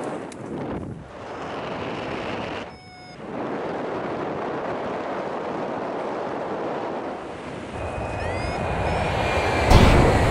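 Wind rushing over the camera microphone of a paraglider in flight, a steady noisy roar that briefly drops about three seconds in, then grows louder near the end with a sudden loud buffet just before it stops.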